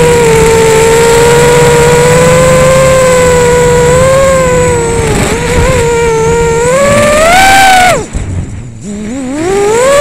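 Brushless motors of a Rooster 230 FPV racing quadcopter on a 3S battery whining loudly, the pitch wavering with throttle. Near the end the whine climbs steeply, cuts off suddenly for about a second as the throttle is chopped, then spools back up with rising pitch.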